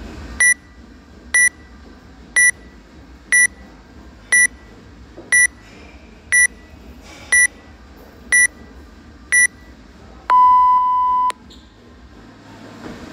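Workout interval timer counting down: ten short high beeps about one a second, then one longer, lower beep of about a second that marks the start of the round.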